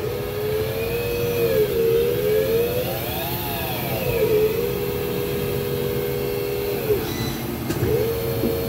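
EMAG VL-3 inverted CNC lathe running behind its closed door: a motor whine that rises and falls in pitch as the machine speeds up and slows down, peaking about three seconds in, then holds steady, with a brief dip near the end, over a steady hum and hiss.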